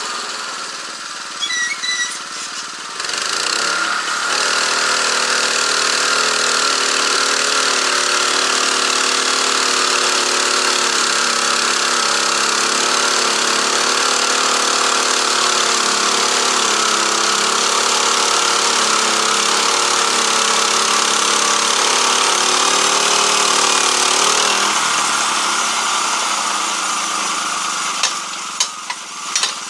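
Petrol engine of a portable band sawmill speeding up about four seconds in and running steadily under load as the band blade is pushed through a log, then dropping back to idle near the end, followed by a few knocks.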